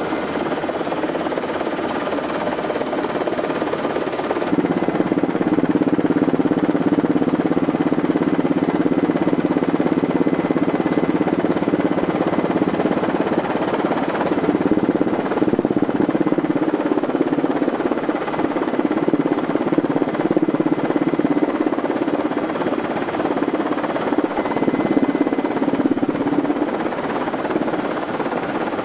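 Helicopter engine and rotor noise: a steady drone that grows louder and lower about four and a half seconds in, then holds.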